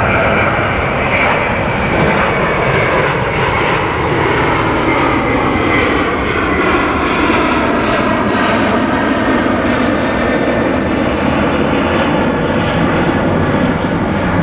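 Jet airliner's engines, loud and steady, with a high whine whose pitch slowly falls.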